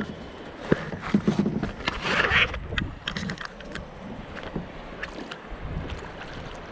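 Water splashing and lapping around a plastic kayak as it is paddled on a river, with scattered small splashes and knocks and a louder splash about two seconds in.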